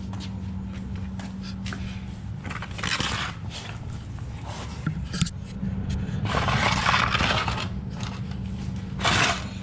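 Scraping and rustling in a few irregular bursts, the longest about six seconds in, over a steady low hum.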